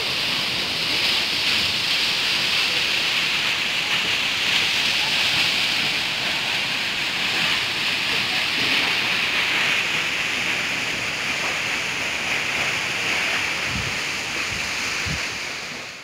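Steady rushing hiss of a tall waterfall, water plunging down a cliff into its pool, fading out near the end.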